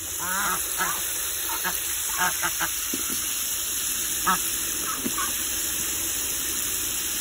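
Steady hiss of water spraying from a hose into a plastic tub, with ducks quacking in short calls now and then.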